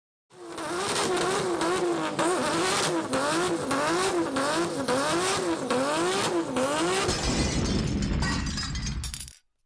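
Car engine revved up and down over and over in quick, even blips, a little under two a second, with crackling; it fades and cuts off near the end.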